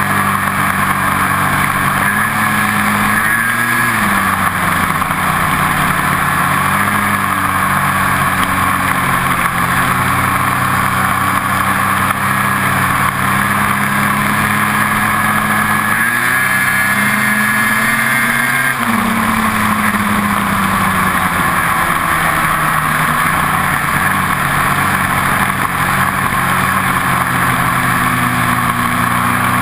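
Ski-Doo 800 two-stroke snowmobile engine running at a steady cruise. Its pitch rises briefly a few seconds in, then climbs again for a couple of seconds past the halfway mark before dropping back, with a steady hiss of wind and track underneath.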